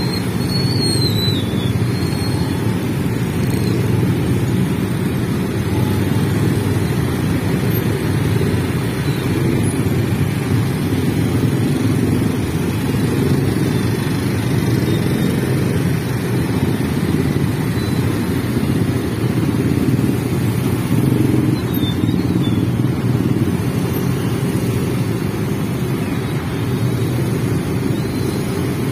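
A dense mass of small motorcycles and scooters running and creeping forward together, their engines blending into one steady, unbroken drone.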